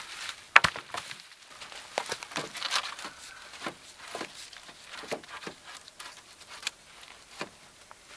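Wooden pine poles knocking and clacking against each other as they are laid across a pole platform frame, with a sharp knock about half a second in and lighter knocks after. Dry pine needles rustle and crackle underneath.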